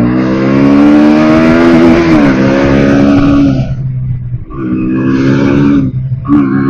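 Bajaj Pulsar NS160's single-cylinder engine revving hard: it climbs over about two seconds, holds, and drops off the throttle, then revs again about five seconds in and gives a short blip near the end.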